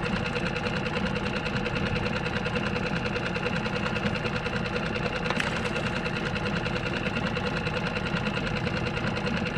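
Small outboard motor on a skiff running steadily at trolling speed, with an even, fast-firing drone that holds at one pitch.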